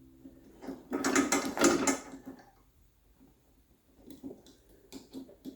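A burst of metallic rattling and clicking about a second in, lasting about a second and a half, then a few light ticks near the end: garage door opener hardware being handled and fitted.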